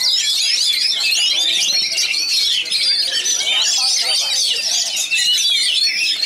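Oriental magpie-robin (kacer) singing in its cage: a fast, unbroken stream of high, varied chirps and whistles. Other songbirds are singing over it at the same time.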